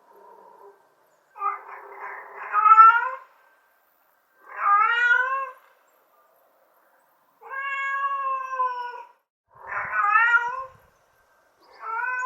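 Mother cat meowing repeatedly, calling for her kittens: five drawn-out meows spaced a second or two apart, the first swelling louder at its end and the third long and level in pitch.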